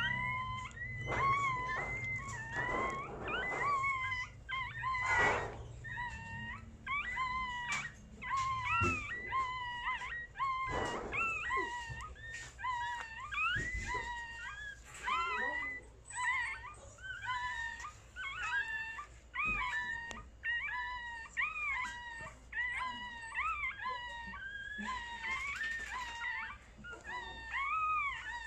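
Newborn mixed-breed puppy (shih tzu–chihuahua × Pomeranian–spitz) crying: a long series of short, high-pitched squeaky cries, one after another, each rising and falling in pitch. A few brief rustles in the first half.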